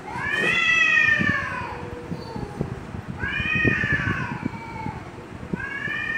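Two cats in a standoff yowling at each other: long, drawn-out wails that rise and then fall in pitch, three of them one after another, the last one still going at the end.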